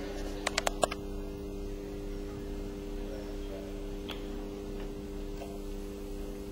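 Steady low electrical hum of evenly spaced tones, with four sharp clicks in quick succession about half a second in.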